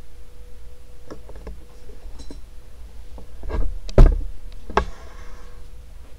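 A string of sharp clicks and knocks, about six of them, the loudest about four seconds in, over the steady low hum of a running ceiling fan motor.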